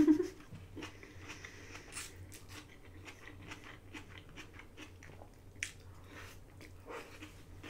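Close mouth sounds of someone eating lo mein noodles: slurping strands in and chewing, a steady run of small irregular clicks.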